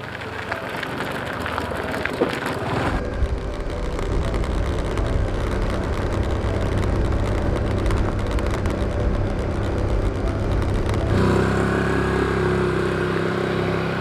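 A vehicle running with a steady low rumble, the sound shifting sharply about 3 seconds in and again near 11 seconds.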